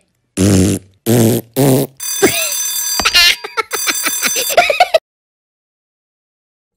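Cartoon sound effects: three short comic voice calls, then a small alarm clock's bell ringing for about three seconds with a comic voice over it, cutting off suddenly.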